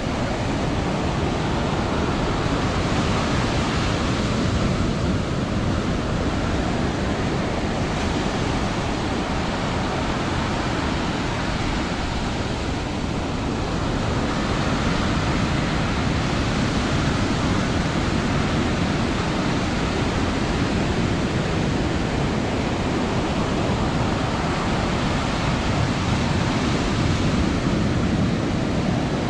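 Ocean surf: waves breaking and washing in, a dense continuous rush that swells and eases slowly.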